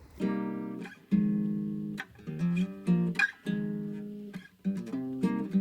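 Music: chords on a plucked string instrument, most likely acoustic guitar, struck about once a second and left to ring and fade.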